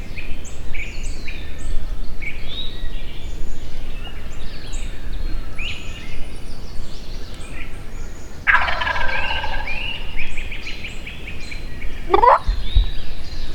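A wild turkey gobbler gobbling once about eight seconds in, a loud rapid rattling call lasting about two seconds. Small songbirds chirp throughout.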